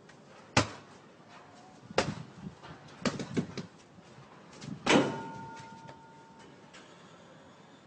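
A few sharp slaps and thumps of bare feet and a body on wet ground, spread over several seconds. The loudest comes about five seconds in, as he goes down onto his hands, and a faint steady tone lingers briefly after it.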